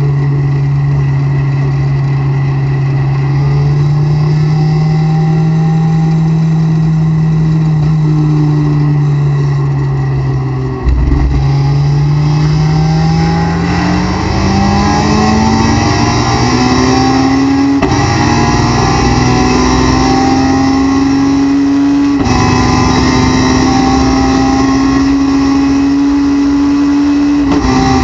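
Honda S2000's inline-four engine heard from inside the cockpit. It holds steady low revs for about ten seconds, then goes to full throttle and revs up hard, with two upshifts partway through as the car gathers speed.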